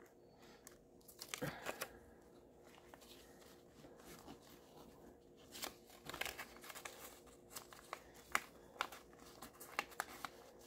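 Hands handling a small ring budget binder holding paper bills in clear plastic envelopes: faint crinkling and scattered small clicks, busiest near the middle and toward the end as the binder is folded shut and its strap fastened.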